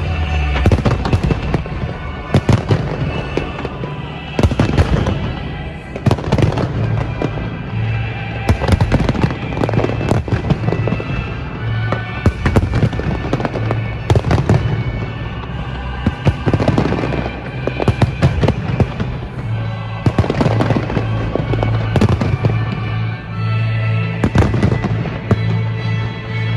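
Fireworks display: many loud bangs and crackling bursts at irregular intervals, over music with a steady deep bass.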